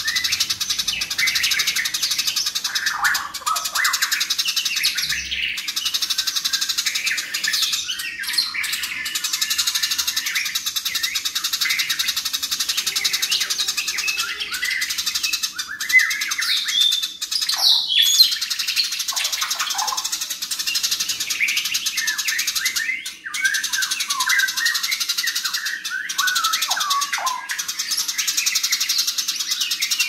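Eurasian tree sparrows chattering in fast, dense, unbroken runs of chirps, the rapid calling of sparrows squabbling, with a few louder sharp calls about halfway through.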